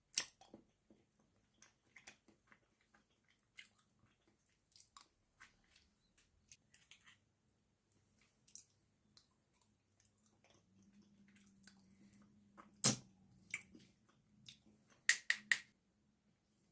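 Close-miked eating sounds: sparse wet mouth clicks and chewing, with a few sharper crackles, the loudest about 13 seconds in and a quick cluster of them near the end.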